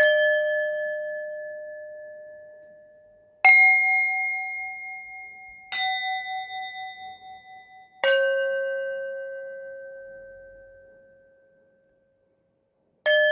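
Metal singing bowls of different pitches struck five times, one after another. Each strike rings out slowly, and some of the rings waver.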